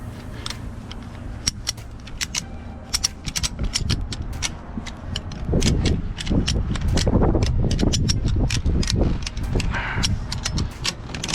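Ratchet of a wheel tie-down strap being worked: a long run of sharp, uneven clicks from the ratchet mechanism. A louder low rumble comes in the middle.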